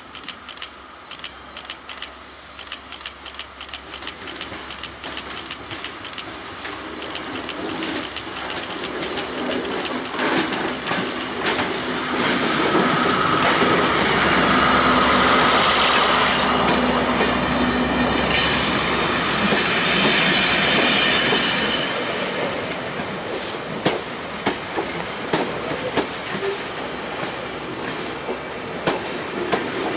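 Network Rail test train led by Class 73 electro-diesel locomotive 73964 passing at speed. Wheel clicks over the rail joints grow louder as it approaches, the locomotive is loudest about halfway through with a steady hum and a higher whine, and the coaches then roll past with a rhythmic clickety-clack.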